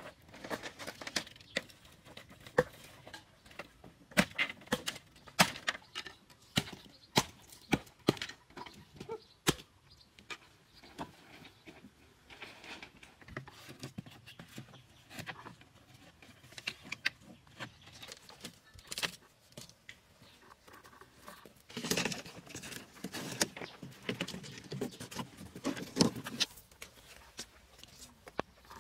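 Split bamboo strips and poles knocking and clattering against each other as they are handled and laid, in irregular sharp knocks, with a longer stretch of rustling and scraping about three-quarters of the way in.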